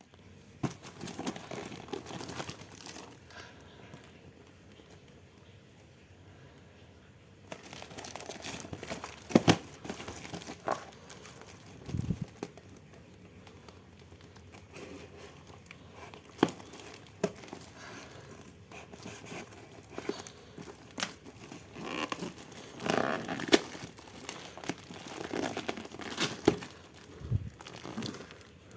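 Packaging being handled and crinkled by hand as an electric fan motor is unboxed: irregular rustling and crinkling with scattered sharp clicks and knocks.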